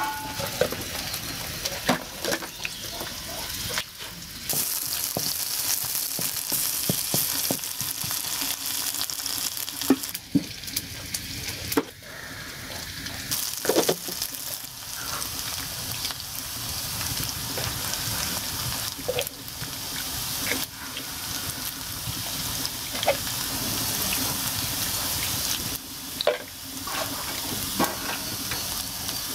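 Sliced onions sizzling in hot oil in a black iron karahi, a steady frying hiss with occasional clicks and knocks.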